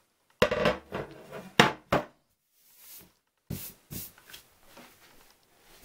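A glass cutting board set down on a hard tabletop: a clattering knock with a short rattle, then two sharp knocks about a second later. Lighter taps follow as paper cards are laid on the glass.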